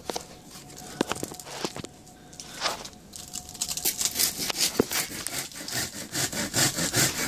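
Hand saw cutting a thin wooden branch in quick back-and-forth strokes. The strokes start about halfway in and grow louder, after a few scattered knocks and rustles as the branch is handled.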